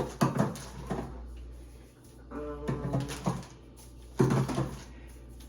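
Knocks and clunks of canned goods and grocery packages being picked up and set down, with a short squeak in the middle.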